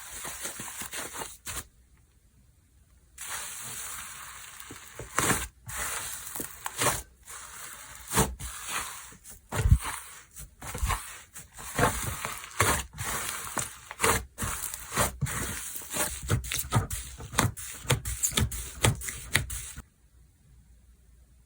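Hands squishing, stretching and poking slime, with many short sharp clicks over a steady sticky rustle. It pauses briefly about two seconds in and stops near the end.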